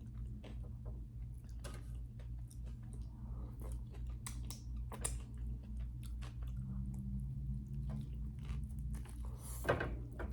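Close-up chewing of a big mouthful of grinder sandwich, with scattered wet clicks and crunches over a steady low hum. A sharper, louder sound comes near the end.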